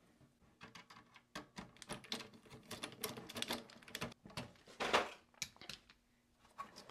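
Quiet, irregular small clicks and taps of plastic and metal as a Noctua fan with rubber corner plugs is worked into the Synology DS920+'s metal fan bracket and screwed down, with a louder knock about five seconds in.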